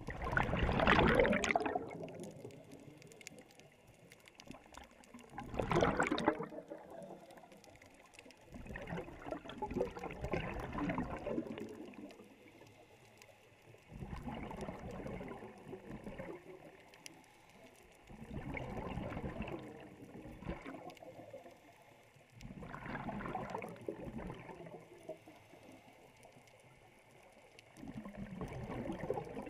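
Scuba regulator exhaust bubbles, heard underwater through a GoPro housing: about seven gurgling bursts of exhaled air, one every four seconds or so, with quieter gaps for the inhales between. The first two bursts are the loudest.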